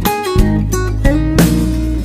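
Background music: guitar-led instrumental with strummed and plucked notes and sharp drum hits.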